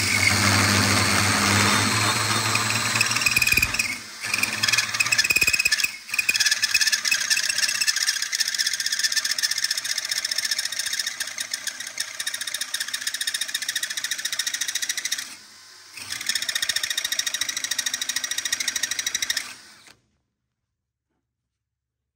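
Drill-driven hole saw in a Rogue Fabrication tube notcher cutting a notch into an oiled metal tube: a steady, high-pitched grinding screech of the spinning saw biting into the tube. It dips briefly twice early on, drops out for a moment about three-quarters of the way through, and then stops about twenty seconds in.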